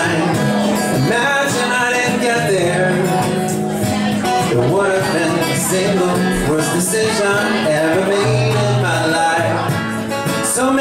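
Acoustic guitar played live in a passage of a solo song, with a steady, full sound of chords over held low notes.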